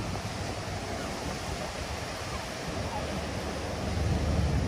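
Wind buffeting the microphone over a steady rush of water, the buffeting growing louder near the end.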